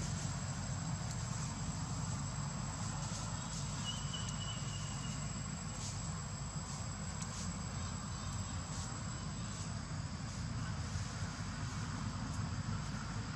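Outdoor ambience: a steady, high-pitched insect whine over a low, steady rumble, with a brief thin whistle about four seconds in.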